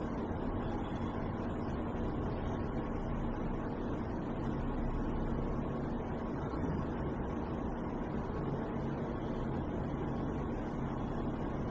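Steady low mechanical hum and rumble with a faint constant tone, unchanging throughout.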